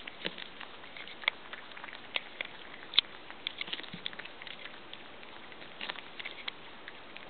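Small pets chewing and crunching corn: irregular sharp crunching clicks, a few a second, with the loudest crunch about three seconds in.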